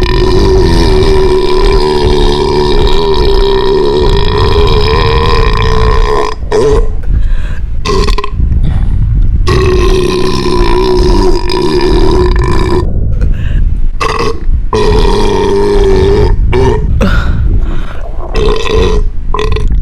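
A person burping loudly in long, drawn-out burps one after another. The first lasts about six seconds and the second about three, followed by a string of shorter ones.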